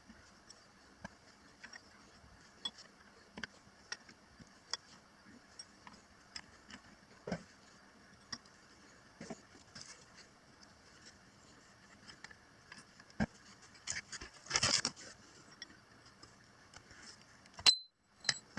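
Sporadic light clicks and taps of hard objects being handled, with one louder scrape about three quarters of the way through and a sharp click near the end.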